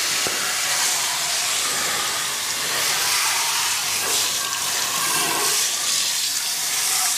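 Garden hose spray nozzle jetting water onto a truck tire and wheel: a steady hiss of spray with water spattering off the rubber and rim.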